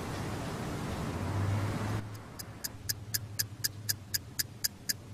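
A rushing noise for about two seconds, then a clock ticking quickly and evenly, about four ticks a second.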